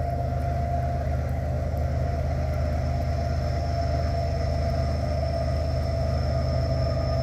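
GE diesel-electric freight locomotives running steadily as a slow train comes by: a continuous low rumble with a few steady whining tones over it.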